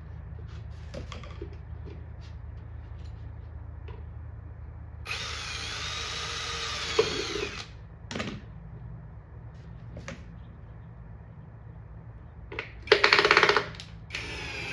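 Power drill running in two bursts, working on the sheet-metal letters being screwed to a wood box: a run of about two and a half seconds from about five seconds in, its pitch dipping and rising, then a shorter, louder burst near the end. Light clicks and taps in between.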